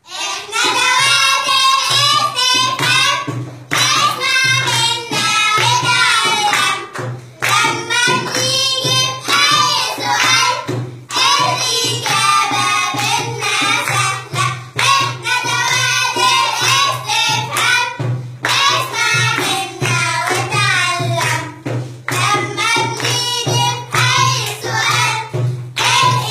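A group of children singing an Arabic school song about question words together, in phrases with short breaks every few seconds, over a steady low hum.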